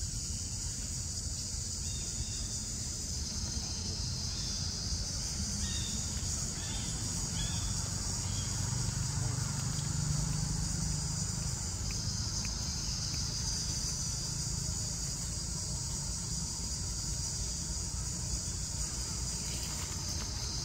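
Steady high-pitched chorus of insects droning without a break, with a low rumble underneath and a few faint short chirps in the first half.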